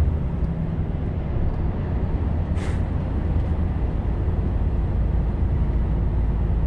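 Volvo FH460 LNG truck's engine and road noise heard from the cab: a steady low drone while the semitrailer is driven along. A short hiss about two and a half seconds in.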